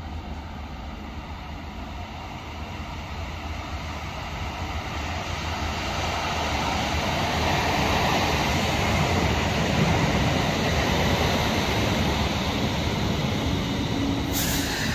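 Karlsruhe Stadtbahn light-rail tram running into an underground station out of the tunnel. Its rumble echoes around the station and grows louder as it arrives and runs along the platform, with a short hiss near the end.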